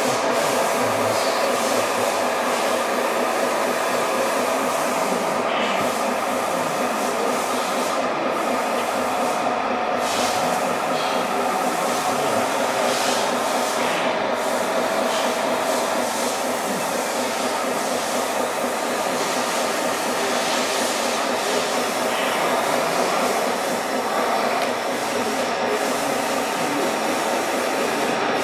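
Radio-controlled tipper semi-truck running with its tipper body raised while it dumps sand: a steady mechanical hum and whir with several held tones.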